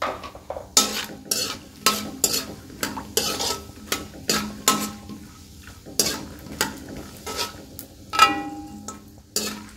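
Slotted metal spoon scraping and clinking against a metal wok, stirring pistachios frying in ghee, about two or three strokes a second, each with a brief metallic ring. A light sizzle of the frying sits underneath.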